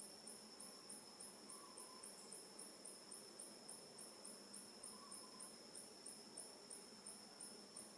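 Insects chirping in a fast, regular pulse, about three to four chirps a second, over a steady high-pitched whine.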